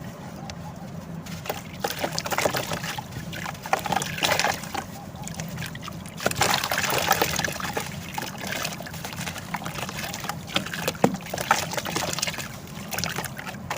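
Crumbling pieces of dry sand-cement dipped in water: watery trickling and sloshing, crowded with small crackles that swell and fade several times.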